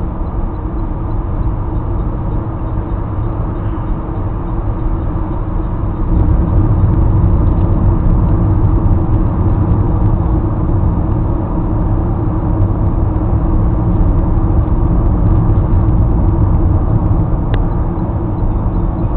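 Road and engine noise inside a car cruising on a motorway: a steady low rumble that grows louder about six seconds in. A faint click comes near the end.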